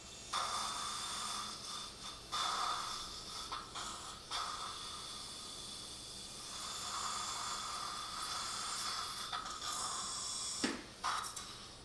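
Surgical suction tip slurping up irrigation and saliva beside a dental implant drill, a hissing gurgle that comes in several bursts with short breaks between them.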